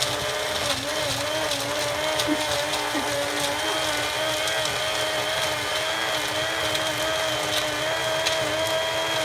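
Countertop blender motor running steadily, crushing ice for shaved ice, with a constant whining hum.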